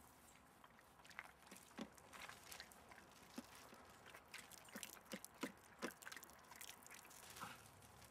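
Near silence, with faint scattered ticks and rustles of footsteps and dogs' paws on a dirt path strewn with dry leaves, a little busier in the middle of the stretch.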